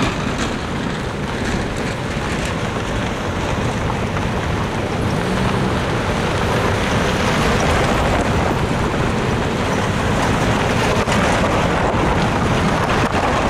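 A line of cars and SUVs driving past on a dirt road, engines and tyres making a steady rush, with wind buffeting the microphone.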